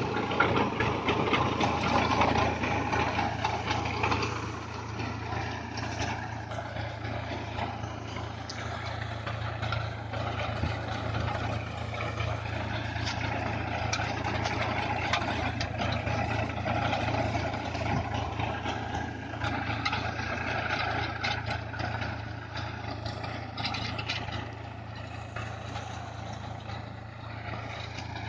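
Tractor engine running steadily, with rattling and clattering over the hum; it is louder for the first few seconds, then settles.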